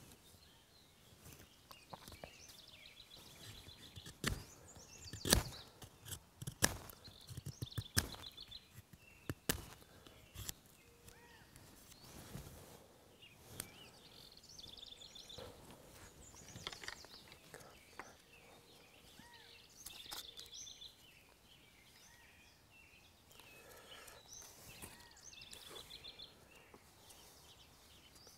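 A multitool's knife blade whittling a wooden stick: sharp shaving clicks and scrapes at irregular intervals, with the strongest strokes a few seconds in. Birds chirp and trill in the background.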